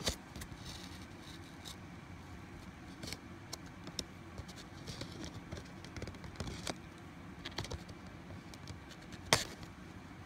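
Scattered clicks and short rustles of disc packaging being handled while a DVD is worked out of its slipcover, with sharper clicks at the very start and about nine seconds in.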